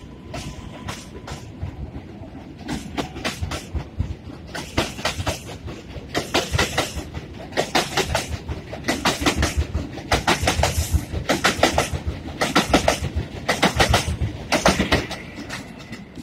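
An R188 subway train's steel wheels clacking over rail joints as the cars pass close by, in rhythmic groups of clicks that grow louder from about three seconds in and are loudest in the last third.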